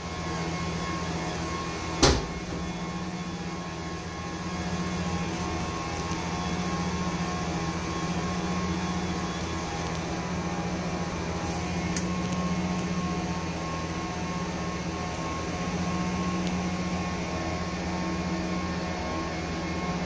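Jar-test paddle mixers running with a steady motor hum, with one sharp click about two seconds in.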